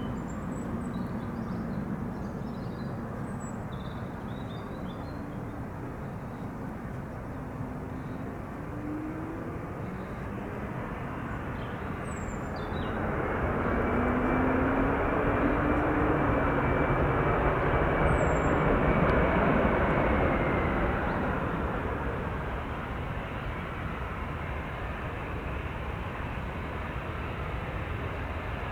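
Bombardier Global Express business jet on landing approach, its two Rolls-Royce BR710 turbofans giving a steady jet rumble. The rumble swells as the jet passes, loudest just past halfway with a high engine whine, then fades.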